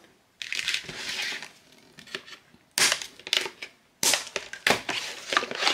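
Toy packaging being handled: crinkling and rustling of plastic and cardboard, with several sharp clicks and snaps.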